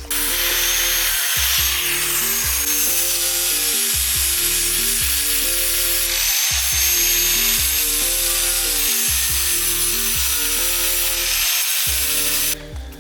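Power sander running steadily on the sheet-metal of a car's engine bay, a noisy grinding hiss with a thin high whine, starting abruptly and cutting off near the end. Background music with a repeating bass line plays underneath.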